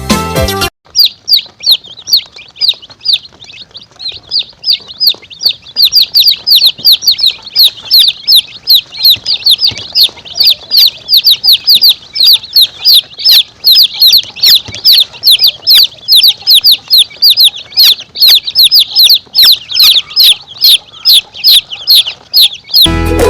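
Domestic chicks peeping: a dense run of short, high, downward-sliding peeps, several a second. Music plays briefly at the start and returns at the very end.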